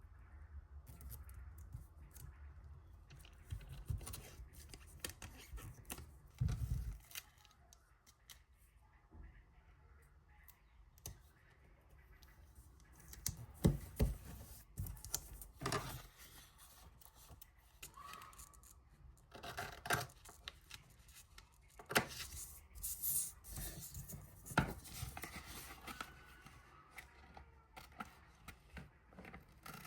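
Scissors snipping through paper in irregular cuts with pauses between them.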